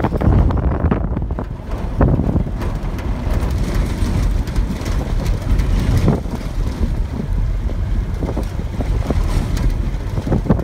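Heavy wind buffeting on the microphone over a low, steady rumble of a vehicle driving across rough ground, with scattered crackles and knocks.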